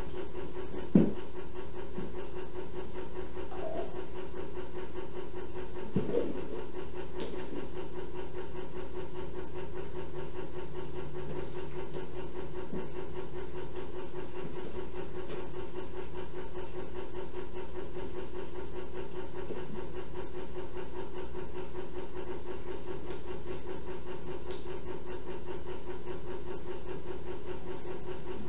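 Steady machine-like hum with a hiss behind it, with a sharp knock about a second in and a smaller bump around six seconds in.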